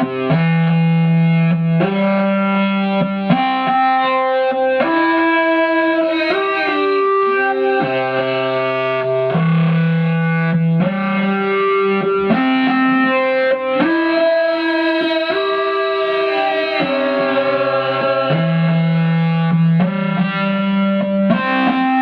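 Live electronic music: a synthesizer holding sustained chords that change every second or two over a low bass note, cycling through a repeating progression.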